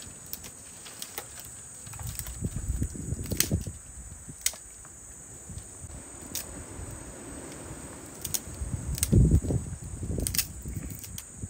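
Steady high-pitched insect chorus, cricket-like, with scattered sharp clicks. Low thumps and rustling come in two stretches, a couple of seconds in and again near the end, and these are the loudest sounds.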